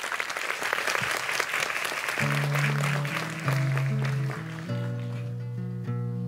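Audience applauding, fading out as a solo acoustic guitar starts playing its opening notes about two seconds in.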